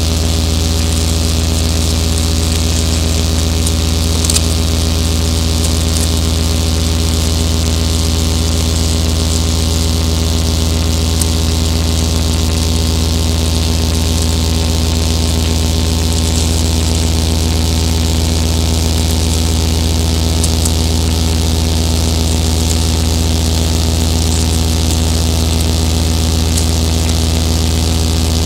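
Electronic drone from a patched modular synthesizer: a loud, steady low hum with many held tones stacked above it, one of them wavering slowly, over a high hiss.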